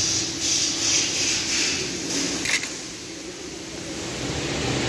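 Intake manifold being worked loose and lifted off a Nissan Sentra engine: a run of hissy scraping and rubbing over the first couple of seconds, ending in a sharp click about two and a half seconds in, then a steady low background hum.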